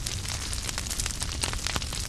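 Wood fire crackling in a fireplace: a steady low rumble and hiss of flames with many sharp, irregular pops and snaps from the burning logs.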